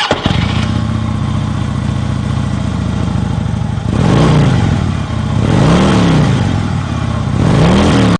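Honda Forza scooter's single-cylinder engine idling, then revved three times, each rev rising and falling in pitch, over the last four seconds.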